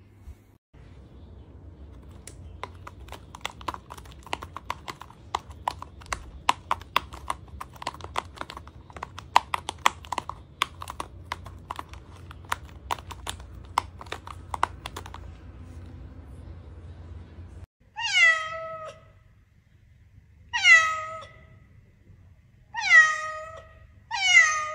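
A run of light, irregular clicks and taps, a few a second, lasting about twelve seconds. Then a cat meows four times, each call falling in pitch and louder than the clicks.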